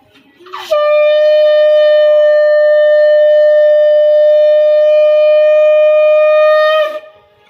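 Conch shell (shankha) blown in one long, steady note, held for about six seconds from about a second in and breaking off near the end, as in Hindu puja worship.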